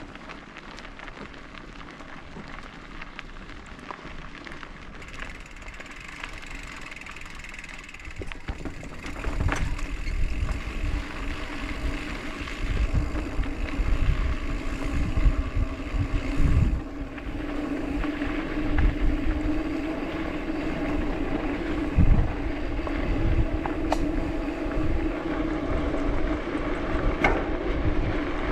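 Mountain bike rolling down a dirt trail: tyres running over dirt and gravel, with wind buffeting the microphone. It gets louder about a third of the way in, and there are a few sharp knocks near the end.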